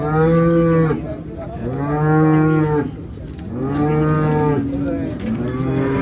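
A cow mooing four times in quick succession. Each moo lasts about a second, with short gaps between them, and the last one runs on past the end.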